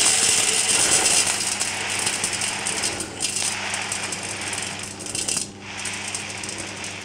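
Buckwheat groats pouring from a paper bag into the stainless-steel mixing bowl of a Thermomix: a steady rush of grains onto metal that slowly fades, breaking off briefly twice.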